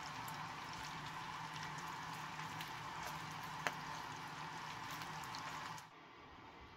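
Bacon sizzling and crackling in a small frying pan over a Jetboil camp stove, with one sharp click of metal tongs about three and a half seconds in. The sound cuts off abruptly shortly before the end.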